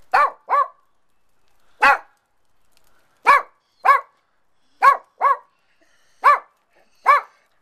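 A small long-haired black-and-tan dog barking up at the person, nine short high-pitched yaps, mostly in quick pairs with pauses of about a second between them.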